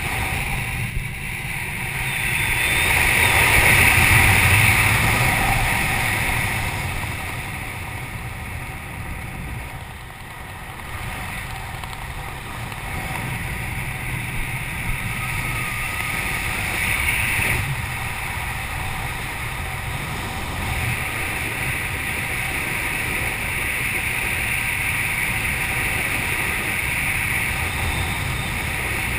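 Air rushing past a skydiver flying under an open parachute canopy. A steady wind noise that swells a few seconds in, eases off, then holds steady.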